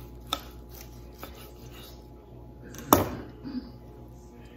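A long slicing knife working through a smoked chuck roast, with a few light knocks against the wooden cutting board, then a loud clack about three seconds in as the knife is set down on the board.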